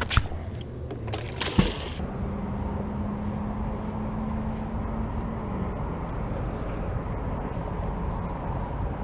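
An engine running steadily in the background, a low drone with a faint held hum. Two sharp knocks come in the first two seconds, the second with a short rush of noise.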